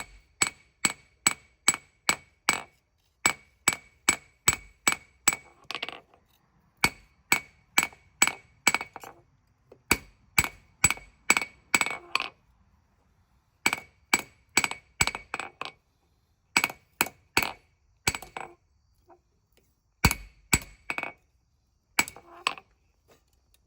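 Hand hammer striking hot steel on an anvil, ringing blows about three a second in runs broken by short pauses: forging a small knife blade from spring steel and widening it.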